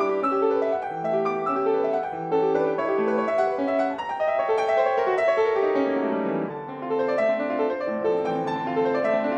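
Solo piano playing a flowing passage of many quick notes, without a break.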